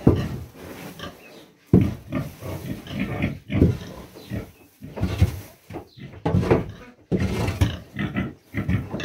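A heavily pregnant sow grunting again and again, in short bursts about once a second. The restlessness is a sign that farrowing is near.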